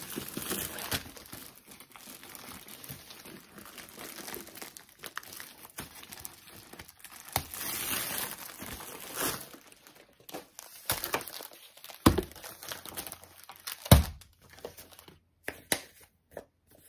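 Clear plastic packaging crinkling and rustling as a rolled diamond-painting canvas is slid out of its plastic sleeve and unrolled, with paper and plastic packets handled. There are two sharp knocks in the second half.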